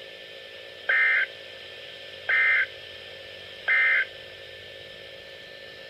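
Three short bursts of Emergency Alert System data tones over NOAA Weather Radio, about a second and a half apart. This is the SAME end-of-message signal that closes the warning broadcast, with steady radio hiss between the bursts.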